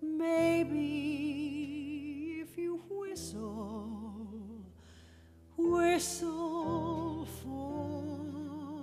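A woman singing a slow ballad with wide vibrato, in sung phrases, over held piano chords. The voice drops to a quieter held passage about four and a half seconds in, then swells back loudly about a second later.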